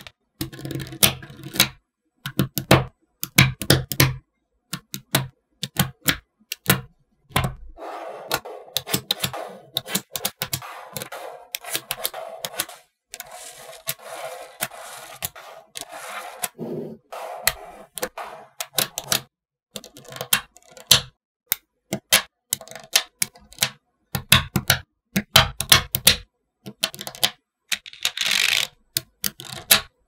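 Small magnetic balls clicking and snapping against each other in quick, irregular runs of sharp clicks as they are set in place by hand.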